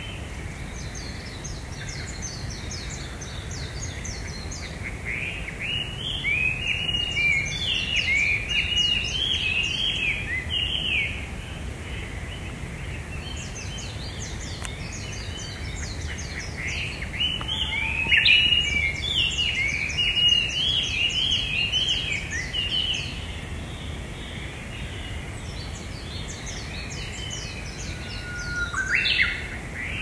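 Small forest birds in their sunrise dawn song: bouts of quick, chirping song phrases several seconds long, with short pauses between them, over a steady low background rumble.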